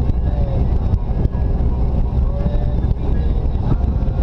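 Jeep Wrangler driving on a paved road, heard from a hood-mounted camera: a steady low rumble of engine, tyres and wind.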